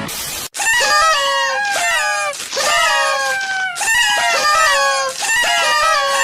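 Roosters crowing, one drawn-out falling call after another, overlapping, after a brief burst of hiss at the start.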